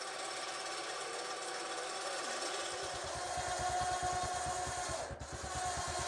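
Battery-powered electric winch reeling in its steel cable: a steady motor-and-gear whine, joined about three seconds in by a fast, even low chatter, with a brief dropout near the end.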